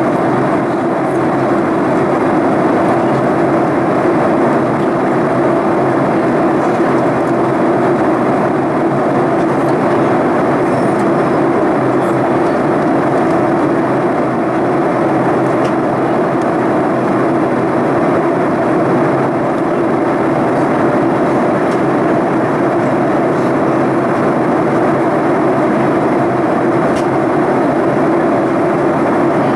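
Steady cabin noise of a Boeing 737-800 in flight, heard inside the cabin: an even rush of airflow and jet engine noise with a steady hum underneath, unchanging throughout.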